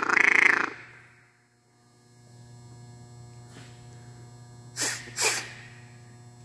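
Duck call blown in a feeder call, a fast pulsing chatter that stops under a second in. Later come two short breathy puffs about half a second apart.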